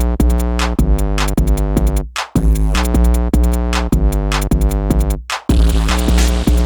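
Electronic dance track built from Novation X-Station synthesizer sounds: sustained synth chords over a heavy bass and drum-machine beat, dropping out briefly twice, about two and five seconds in.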